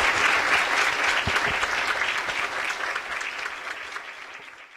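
Audience applauding, the clapping fading away steadily and cutting off near the end.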